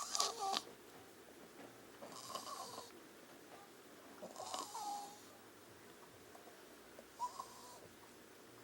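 Wheezing breaths, four of them about every two and a half seconds, each a short rasp carrying a high whistling note.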